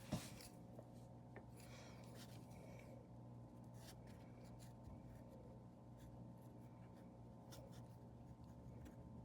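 Faint, scattered scratching strokes and light ticks of a paintbrush working on a painting, over a low steady hum.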